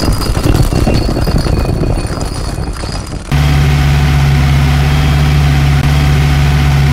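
Engine sound effect in an animated channel intro: a rough engine rumble for about three seconds, then abruptly a steady, low idling drone.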